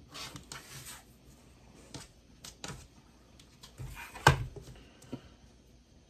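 A rotary cutter rolls through fabric on a cutting mat, a short rasping cut in the first second. A few light clicks follow, then one sharp knock a little over four seconds in.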